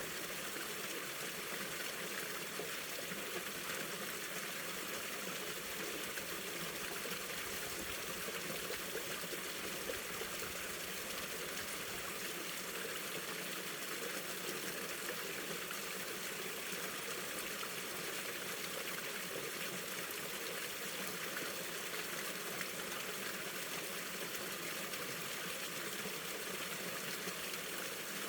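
Mountain stream flowing over rocks in a winter valley: a steady, even rush and trickle of running water.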